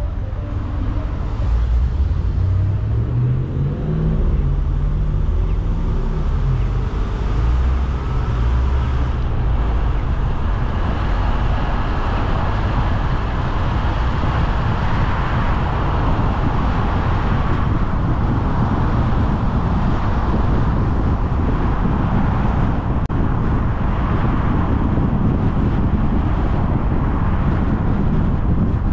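Car driving on city streets: the engine rises in pitch as it pulls away during the first several seconds, then steady tyre and road noise at cruising speed.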